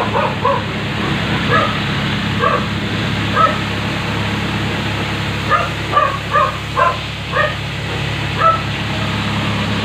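A dog barking repeatedly in short, high yips, in irregular clusters. A steady low hum runs underneath.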